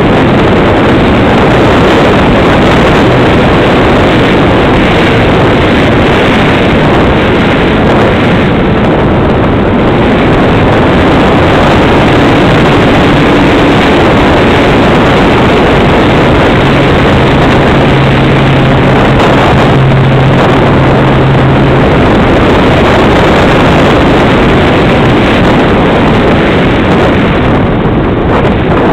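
Loud steady rush of wind over the onboard camera's microphone, mixed with the model airplane's motor and propeller running in flight; a faint hum comes and goes, and the noise eases slightly near the end.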